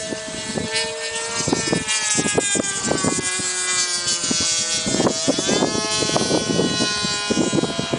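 Electric RC warbird's 1000Kv brushless motor and 9-inch three-blade propeller whining in flight, its pitch shifting steadily and dropping sharply about five seconds in. Wind buffets the microphone throughout.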